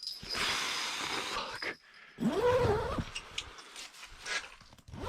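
A man's wordless groan of frustration about two seconds in, one drawn-out voiced sound that rises and then falls in pitch. It follows a breathy rush of noise lasting about a second and a half.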